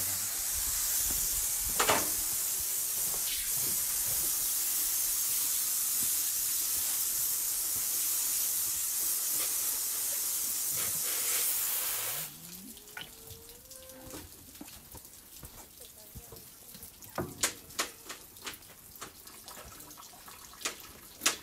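Water spraying steadily from a hose, a loud even hiss that shuts off suddenly about twelve seconds in. After it come quieter scattered clicks and knocks.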